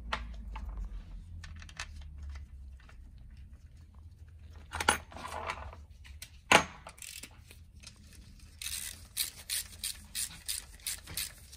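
Bolts on an ATV engine's electric-starter cover being fitted and tightened by hand: small metal clicks and taps of tool on metal, with two sharper knocks about five and six and a half seconds in. Near the end comes a run of quick metallic clicks, about three a second, as a socket tool turns a bolt.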